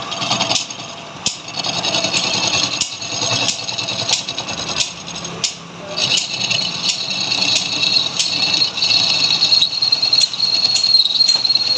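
Metal lathe machining with scraping and irregular sharp clicks; about halfway through a steady high-pitched whine from the cut sets in and holds.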